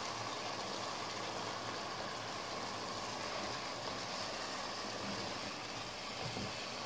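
Mutton and ground spices frying in a pot: a steady, even sizzling hiss.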